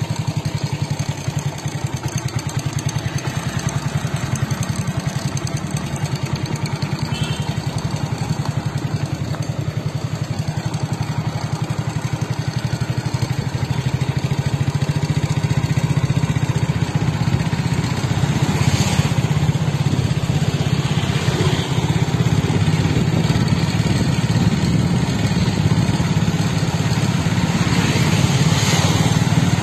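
Motorcycle engine running steadily while riding along a road, heard from on board, growing louder about halfway through. Two brief rushes of noise come near the end.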